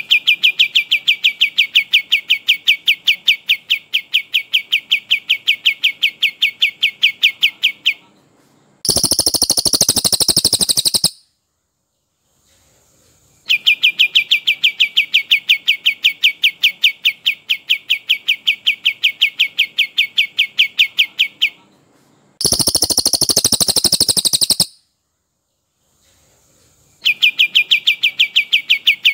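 Recorded songs of a brown cililin and a kapas tembak, looped as a bird-training track. Each cycle is about eight seconds of rapid repeated notes, about five a second, followed after a short gap by a two-second higher, denser trill. The cycle plays twice and starts again near the end.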